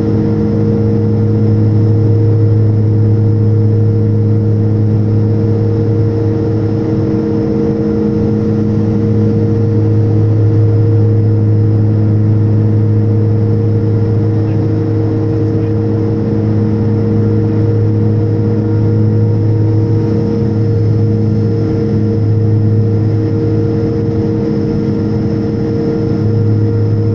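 Turboprop airliner's engine and propeller drone heard from inside the cabin on approach: a loud, steady low hum made of several held tones over a constant rush of air.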